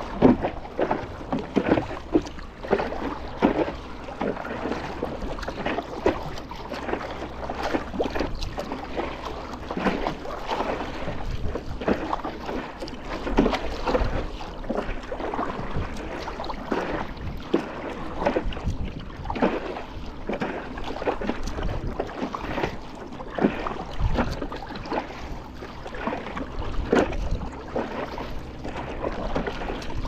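Paddle strokes splashing into choppy sea water beside a stand-up paddleboard, with water lapping against the board in irregular splashes. Wind gusts rumble on the microphone.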